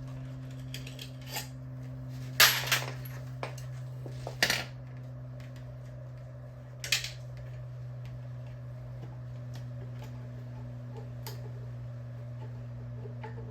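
Metal hand tools and parts clinking and clanking now and then, with the loudest clatters about two and a half and four and a half seconds in, over a steady low hum.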